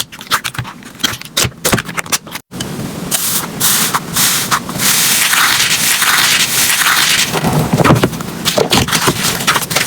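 Slime being squeezed and pressed by hand, giving rapid sticky clicks and crackling pops. A short break about two and a half seconds in, after which the crackling becomes denser and more continuous.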